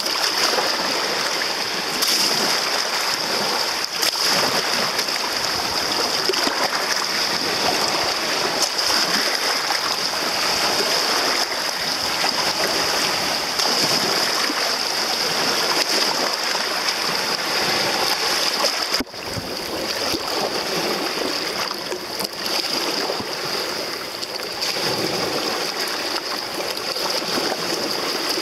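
Steady rushing of a waterfall, with a brief dip about 19 seconds in.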